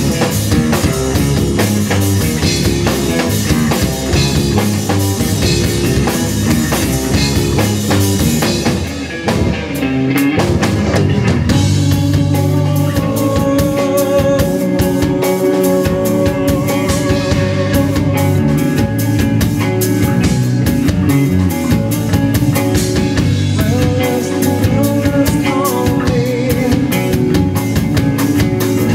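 Live rock band playing loudly: drum kit, electric guitars and a lead singer. The band drops back briefly about nine seconds in, then comes back in.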